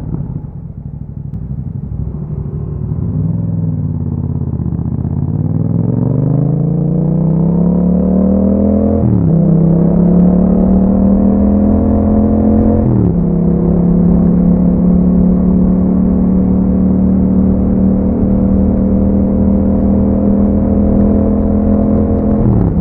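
Yamaha MT-07's parallel-twin engine through an aftermarket Akrapovic exhaust, heard from the bike while riding. The revs sink after a roll-off, then climb as the bike accelerates. There are quick drops in pitch about nine and thirteen seconds in as it shifts up, and it then cruises at steady revs until one more drop right at the end.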